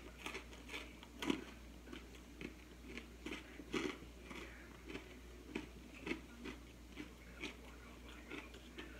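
Close-up chewing of crunchy food: a string of irregular crisp crunches, roughly two a second.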